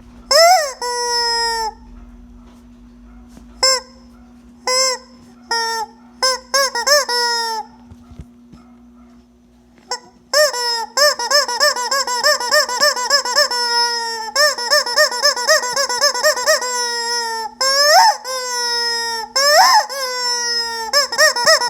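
Rubber squeaky chicken toy squeezed again and again, giving long honking squeals and short squeaks. It goes a few at a time in the first half, pauses briefly, then from about halfway on comes in quick runs of squeaks with a few long squeals among them.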